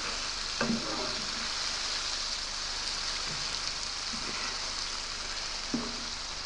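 Chopped onion and garlic sizzling steadily in olive oil in a frying pan over low-medium heat, stirred with a wooden spoon, giving a few soft scrapes and taps.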